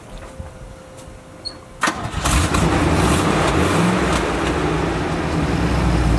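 1966 Chevrolet C10 panel truck engine starting about two seconds in, catching quickly, then running steadily and loudly.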